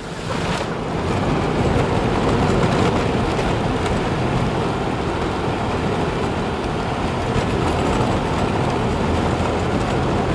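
Steady road noise of a van driving on a snow-packed road, engine and tyre noise heard from inside the cabin.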